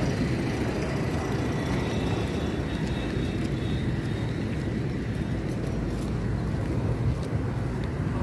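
Steady low rumble of street traffic, with no distinct events.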